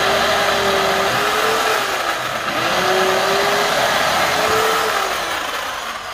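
Corded electric drill running at speed as its bit bores into a small wooden block, widening the hole with a half-inch bit. The motor tone dips and recovers several times as the bit bites.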